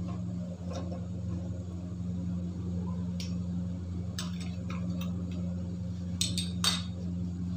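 Metal tongs clinking against a small steel bowl as a hot lump of charcoal is set into it: a handful of short sharp clinks, the loudest cluster near the end, over a steady low hum.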